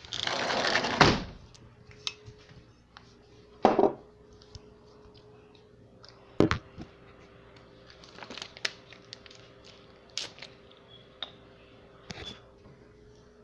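Household handling sounds: a rushing noise that ends in a sharp thunk about a second in, then a few separate knocks and a run of small clicks as a cup and bottle are handled and set down, over a faint steady hum.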